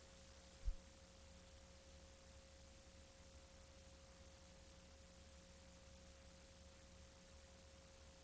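Near silence on blank videotape: a faint steady electrical hum with a thin steady tone above it and light hiss. One brief low thump just under a second in.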